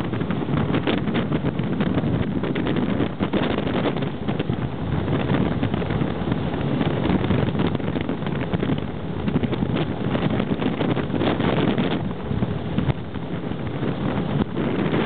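Speedboat running flat out, its engine a loud steady drone mixed with heavy wind buffeting the microphone.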